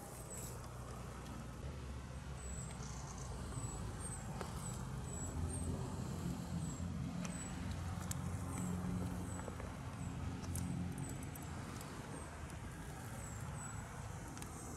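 Low rumble of a passing vehicle, swelling through the middle and easing off, with faint, short, high chirps repeating about twice a second.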